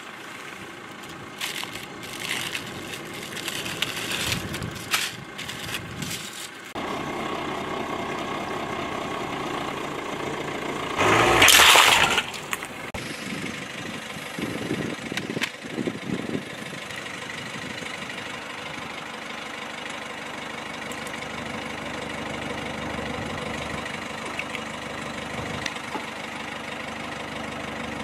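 A car engine idling steadily, with scattered clicks and knocks of objects being handled and set down on asphalt. About eleven seconds in there is one loud burst of noise lasting about a second.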